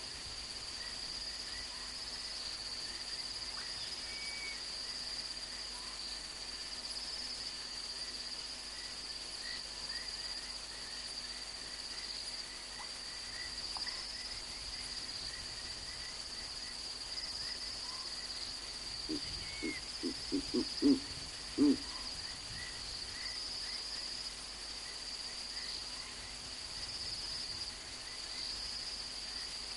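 A Verreaux's eagle-owl gives a short series of about seven deep, low hoots over two to three seconds, about twenty seconds in. Under it, a steady high-pitched chorus of night insects runs on.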